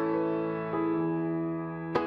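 Slow, soft background piano music, with a new note or chord struck about once a second and ringing on.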